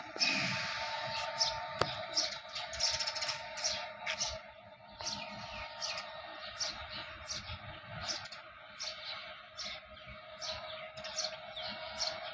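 Small birds chirping repeatedly, short high downward chirps about one or two a second, over a steady background hum. A brief rush of noise in the first second is the loudest moment.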